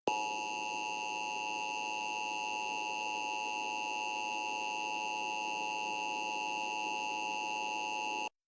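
Emergency Alert System attention signal: a steady electronic alert tone held about eight seconds, cutting off abruptly near the end. It announces that an emergency warning, here a tornado warning, is about to be read.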